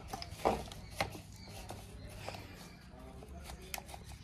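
Scattered sharp clicks and clanks of hand tools and metal parts being handled while dismantling a brush cutter, loudest about half a second and a second in.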